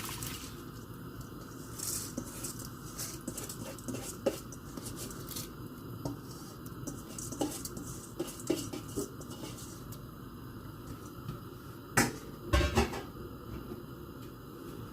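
Utensil clinking and scraping against a cooking pot as soaked basmati rice is added to the boiling water and stirred. It is a run of scattered light clicks, with two louder knocks near the end.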